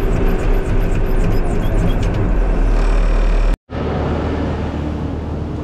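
Skid-steer loader engine running loud and steady, heard from inside the cab, with a fast regular ticking over it. About three and a half seconds in it cuts off abruptly and a quieter, steady hum follows.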